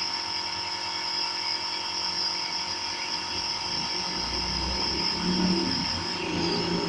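Compressor nebulizer running steadily: a mechanical motor buzz with a constant high hiss from the mist, during a nebulizer treatment for a child's cough.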